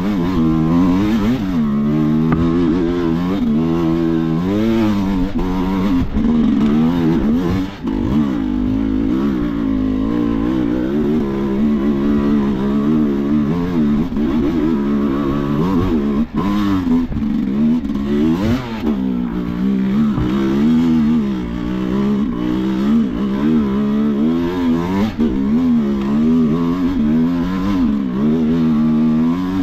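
Sherco enduro motorcycle engine being worked hard off-road, its revs rising and falling constantly as the throttle is opened and closed, with a couple of brief drops in revs about 8 and 16 seconds in.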